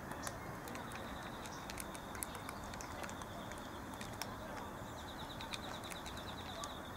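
Several cats eating wet food from plastic trays: irregular small chewing clicks and smacks, many short ticks in quick succession, over a steady low background noise.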